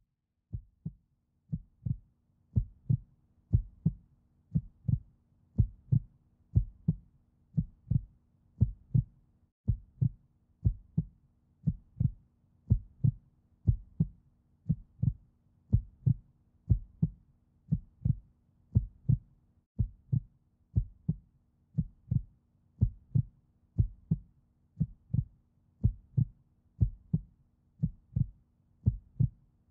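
Steady, evenly spaced thumps, roughly three every two seconds, picked up by a GoPro camera riding on a spinning potter's wheel, with a faint steady hum of the wheel underneath.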